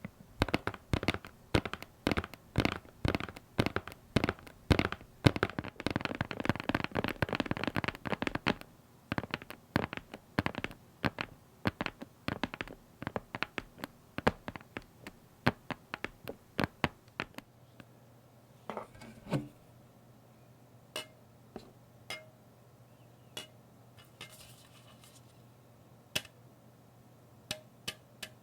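Rapid small clicks and crackles, dense with a brief hiss about six seconds in, thinning out after about seventeen seconds to a few scattered ticks.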